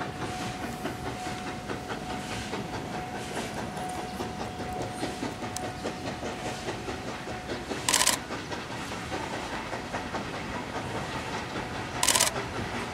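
A distant SY-class 2-8-2 steam locomotive working as it approaches: a continuous rough rumble and hiss, with a steady high tone through the first half. Two short, loud hisses come about eight seconds in and again near the end.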